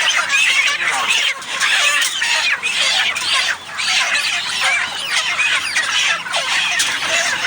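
A large flock of young chickens, about five weeks old, peeping and clucking all at once in a dense, unbroken chatter of many overlapping short calls.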